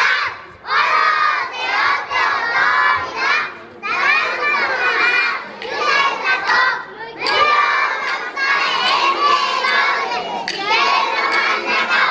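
A group of young children shouting together in unison, in repeated short bursts with brief pauses between them.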